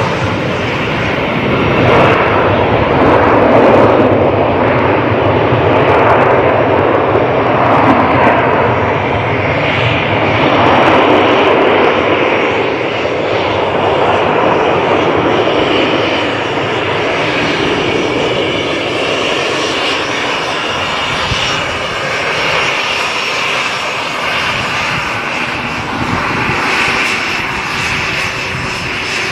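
Business-jet turbofan engines running on the airfield: a loud, continuous jet noise that swells over the first dozen seconds and then eases, with a steady high whine in the later part.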